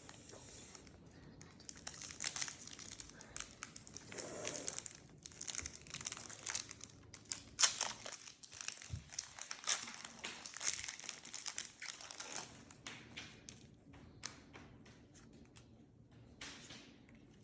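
Crinkling of a foil Pokémon booster-pack wrapper and handling of the cards: a dense run of rustles and small clicks that thins out after about thirteen seconds.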